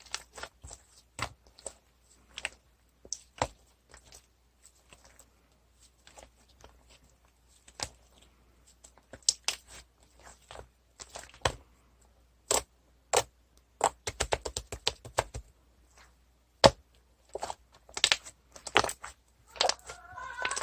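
Irregular sharp clicks and knocks, like objects being handled and tapped, with a quick rattling run of clicks about two-thirds of the way through.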